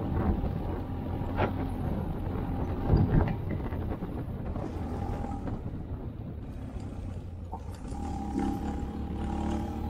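Italika V200 motorcycle engine running steadily while riding, with a few sharp knocks, the loudest about three seconds in.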